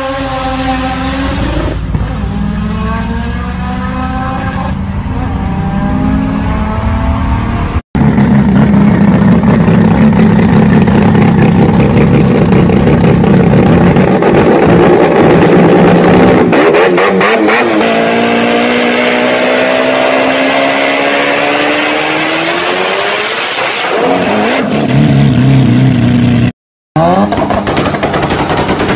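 Rotary-engined cars at full throttle: first a car accelerating hard, its pitch climbing through two gear changes, then a triple-turbo rotary engine revving loudly with a long rising whine as the revs climb and fall away. Near the end a Mazda RX-7 FD's rotary sets off rapid exhaust pops and bangs from anti-lag or 2-step.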